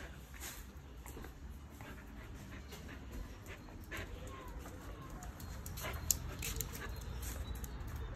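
Keeshond puppy crunching crispy dried chicken feet, a run of irregular sharp cracks as it bites through the bones, with the dog breathing between bites.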